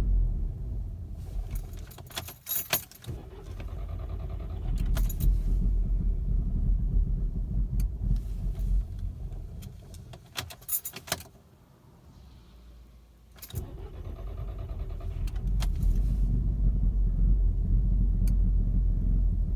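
Volkswagen Mk6 GTI's 2.0-litre turbocharged four-cylinder running at a rough idle on a hot restart, with keys jangling. About eleven seconds in the engine dies away to a stall, and a couple of seconds later it is started again and runs on with a loud, uneven idle.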